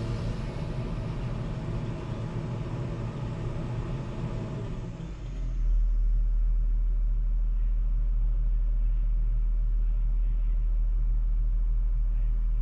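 Tractor diesel engine running steadily. About five seconds in the sound changes abruptly to a louder, steady low hum with much less high-pitched noise.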